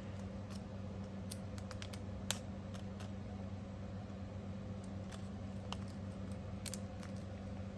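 Scattered light clicks and taps of small metal parts (the fidget slider's balls, springs and pieces) being handled, the sharpest about two seconds in, over a steady low hum.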